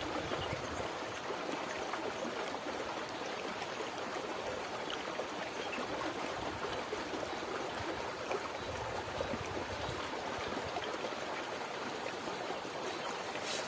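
Steady rush of running water from a small stream, even and unbroken.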